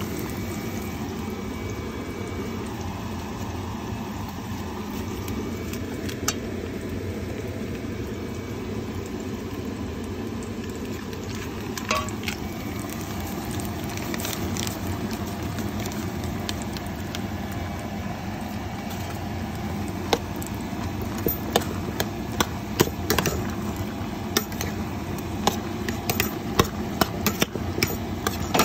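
A pot of pasta boiling on a stovetop with a steady low noise. About two-thirds of the way in, a spoon starts clicking and knocking against the metal pot in quick, irregular taps as the pasta is stirred.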